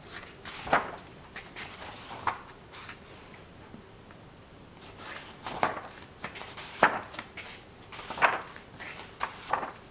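Paper pages of a thick paperback book being turned by hand: a series of about six short rustling swishes, each a page flipped over and smoothed down.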